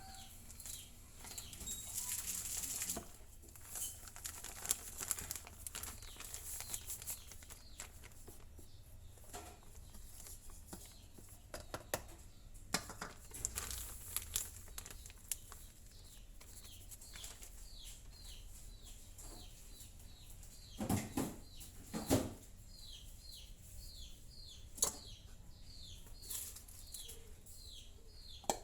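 Plastic flour packaging rustling and crinkling while whole wheat flour is poured into a storage container, with scattered small clicks and two dull thuds a little past the middle. In the second half a bird chirps over and over, in short falling chirps about two a second.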